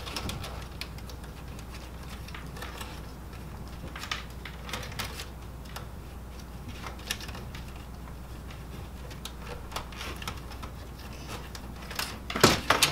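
Scattered small clicks and light plastic rattles as cables and parts inside an opened Kyocera FS-4300 laser printer are handled and pressed into place, with a louder clatter near the end.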